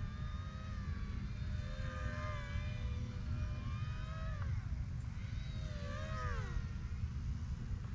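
Electric motor and propeller of a small RC P-51D Mustang plane in flight, a thin whine that wavers and drops in pitch twice, about halfway through and again a couple of seconds later. Wind rumbles on the microphone underneath.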